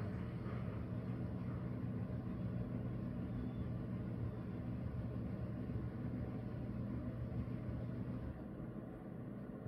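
Long-haired tabby cat purring: a steady low rumble that weakens near the end.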